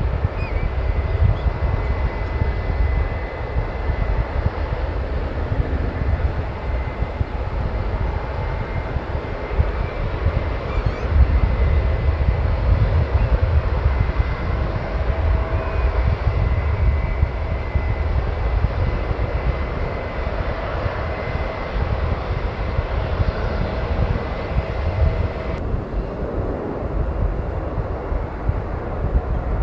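Jet airliner engines running, a steady low rumble with a faint high whine over it. The upper hiss and whine drop away suddenly a few seconds before the end.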